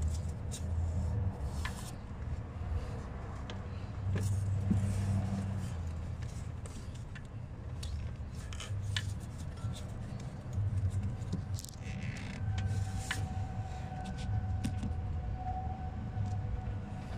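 Scattered clicks and scrapes of hands working plastic fittings and rubber hoses around a car's evaporative purge valve, over an uneven low rumble.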